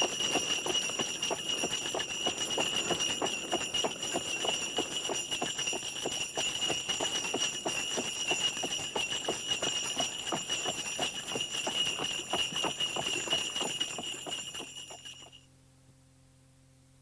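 Sleigh-ride sound effect: sleigh bells jingling steadily over the regular clip-clop of horse hooves, fading out about fifteen seconds in to a faint hum.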